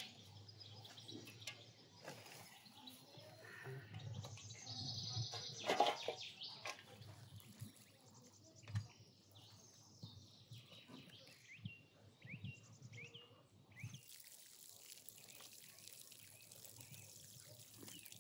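Hands rustling and rubbing loose animal hair into dry soil in a metal basin, with scrapes and a knock against the basin about six seconds in. Small birds chirp between about eleven and fourteen seconds, and in the last few seconds water is poured onto the soil with a steady hiss.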